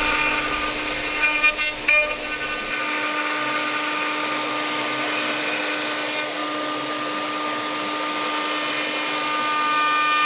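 CNC router's spindle running with a steady high whine over machine noise, with a few short clicks between one and two seconds in.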